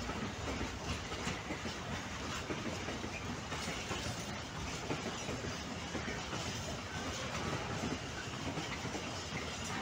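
Freight train wagons rolling steadily past: a continuous rumble of steel wheels on rail, with scattered clicks over the rail joints.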